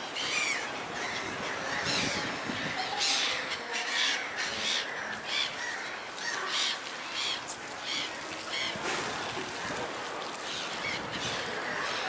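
Gulls calling repeatedly: many short, harsh cries, several overlapping, over a steady background hiss.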